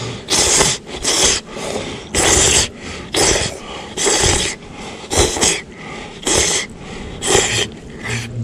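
A person slurping udon noodles: about ten short, airy slurps, roughly one a second.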